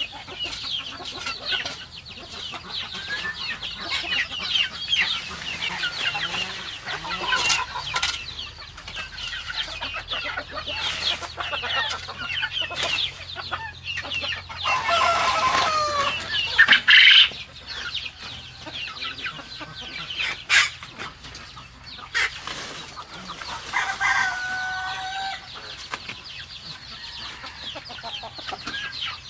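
A flock of chickens clucking and chirping without pause, with a louder, drawn-out call about halfway through and another shorter one a little after that. Scattered scrapes and knocks of a hoe on the dirt floor of the run come through between the calls.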